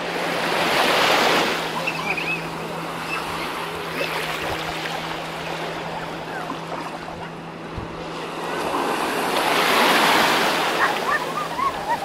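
Small sea waves washing up on a sandy shingle shore, the wash swelling twice, near the start and again near the end.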